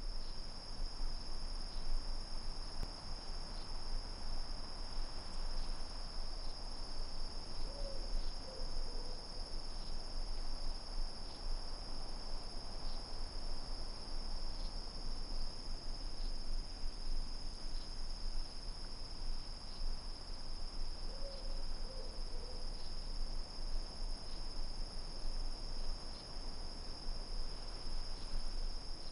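Crickets chirping in a steady high-pitched chorus, over a low steady rumble.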